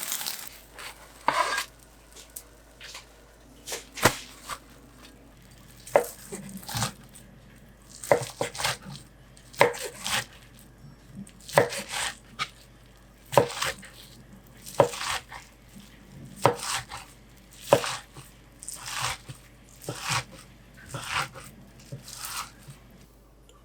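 Knife chopping food on a cutting board in slow, irregular strokes, about one a second.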